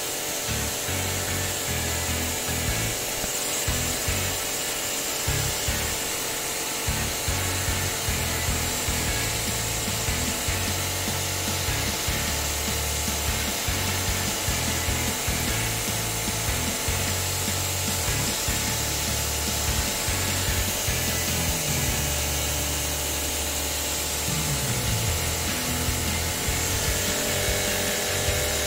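Workshop tool noise: a rough, uneven working sound whose low hum starts and stops many times.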